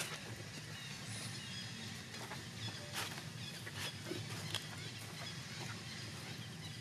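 Outdoor ambience: a steady low hum with faint short chirps and a few sharp clicks and rustles scattered through it.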